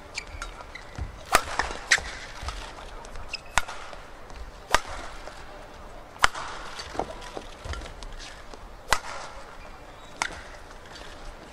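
Badminton rally: rackets striking the shuttlecock back and forth, about eight sharp cracks spaced one to two seconds apart, with short shoe squeaks on the court between hits.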